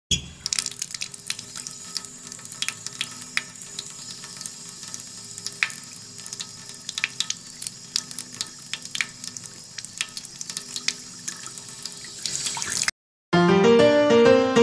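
Water running hard from a tap and splashing into a sink, with many small splashes and drips. It cuts off suddenly about 13 seconds in, and after a short silence music with stepping notes begins.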